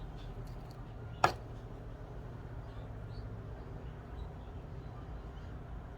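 Quiet kitchen room tone with a low steady hum, broken by one sharp click or knock about a second in and a few faint ticks.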